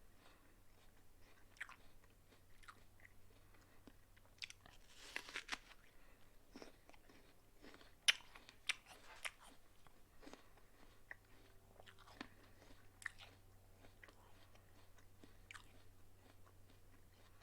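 A person biting into and chewing a crisp apple: faint scattered crunches, a denser run of crunching about five seconds in, and a few sharper, louder bites a little after the middle.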